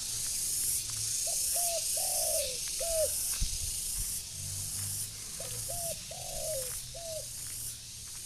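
Spotted dove cooing: two phrases a few seconds apart, each of two short coos, a longer falling coo and a final short coo. A loud, pulsing high hiss runs underneath.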